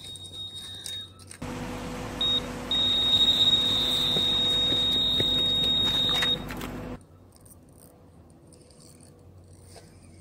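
Electronic carp bite alarm sounding: a short beep, then a steady high-pitched tone held for several seconds over a steady hiss, the sign of a fish taking line on a run. The sound stops suddenly about seven seconds in.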